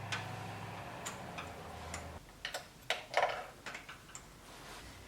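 Socket ratchet clicking in short irregular runs while new spark plugs are threaded in and tightened. A low steady hum stops about two seconds in.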